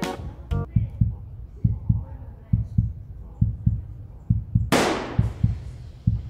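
Heartbeat sound effect: rapid low thumps, about three a second. About three-quarters of the way through, a whoosh swells and fades.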